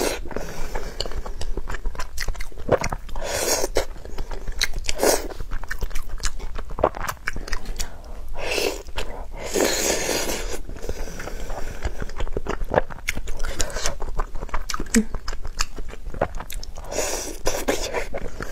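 Close-miked eating: wet chewing and mouth clicks, with several louder noisy bursts along the way.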